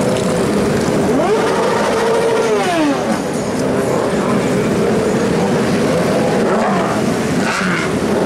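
A dense stream of motorcycles, sport bikes and big touring cruisers, riding past with engines running together. Single bikes stand out as their revs rise and fall while they pass, once about a second in and again near the end.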